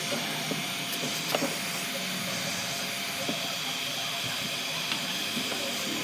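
A steady hiss with a faint steady hum under it, and a few light clicks or taps, the sharpest about a second and a half in.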